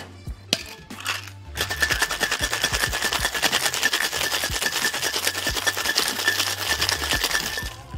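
Ice rattling fast inside a two-piece metal cocktail shaker during a hard shake of about six seconds, after a few knocks as the tins are pressed together.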